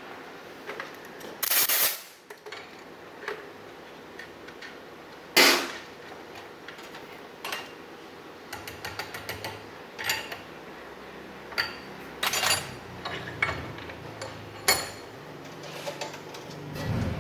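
Irregular metallic clinks and knocks of hand tools and metal parts being handled during diesel injection pump repair work, with two louder clanks, about two seconds in and about five seconds in.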